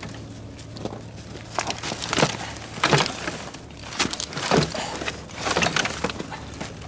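Rusty scrap metal and dry brush being pulled and shifted out of a snow-covered debris pile, with boots crunching in the snow: a run of irregular crunches and knocks.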